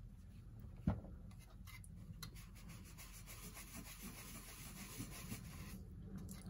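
A cloth rubbing over the wooden case of an Ingraham mantel clock, wiping cleaner and dirt off the old finish. A single light knock comes about a second in.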